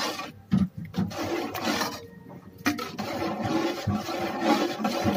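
A spoon stirring a pot of champorado (chocolate rice porridge), scraping and rubbing against the pot, with a couple of sharp knocks.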